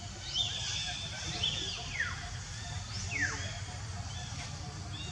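High-pitched animal calls: three or four squeals that each fall sharply in pitch, about a second apart, with a thin held tone between the first two. They sound over a steady high hiss and a low rumble.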